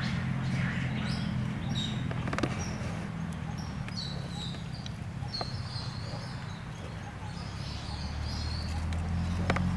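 Short high chirping calls, scattered and repeated, over a steady low hum.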